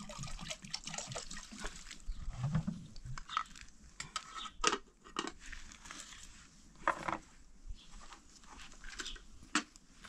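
Water pouring from a plastic jerrycan into a kettle for about the first two seconds. Then scattered clinks and knocks as the kettle and plastic jerrycans are handled and set down, with the sharpest ones about halfway through and near the end.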